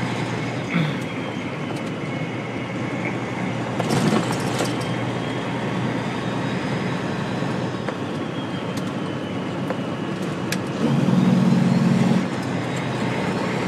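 Heard from inside the cab of a moving tractor-trailer: the diesel engine and tyres running steadily on the road. A few short knocks come about four seconds in, and a louder low hum lasts about a second near the end.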